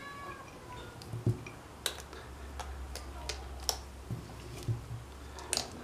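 Scattered light clicks and taps, about ten at uneven spacing, of almonds being picked from a small ceramic dish and set onto a pan of fatta by a gloved hand.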